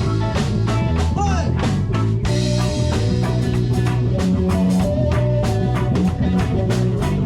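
Instrumental passage of a band's song with no singing: guitar over bass and drum kit, with steady drum strokes and a short bent note about a second in.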